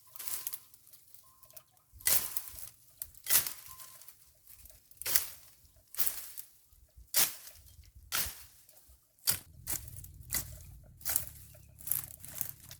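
Weeds and grass being cut by hand with a blade tool, about a dozen sharp strokes roughly once a second.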